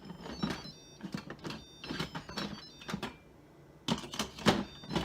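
Electric pressure cooker lid being set on the pot and turned into place: a string of sharp clicks and knocks, the loudest about four and a half seconds in.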